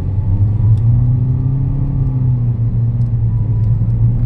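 Toyota Vios dual VVT-i four-cylinder engine pulling under hard acceleration, heard from inside the cabin as a loud, steady drone whose pitch rises and then eases. It pulls smoothly with no jerking or misfire, after the fuel filter was replaced and dirty fuel drained.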